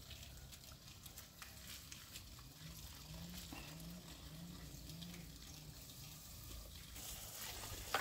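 Faint clinks and handling at a cooking pot over a wood fire, with a faint low sound repeating about five times in the middle. Near the end, water splashing as leafy greens are swished in a basin of water.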